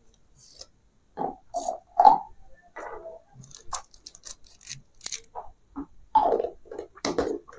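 A small polythene bag crinkling and rustling as it is handled and filled close to the microphone. It comes in irregular short crackles and a few sharp plastic clicks.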